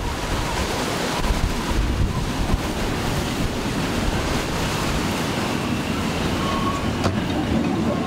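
Gale-force wind buffeting the microphone: a dense, rumbling noise without a break.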